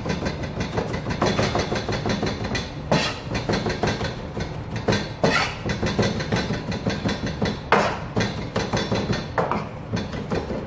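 Kitchen knife chopping peeled garlic on a plastic chopping board: a fast run of knocks with a few louder strikes, over a steady low hum.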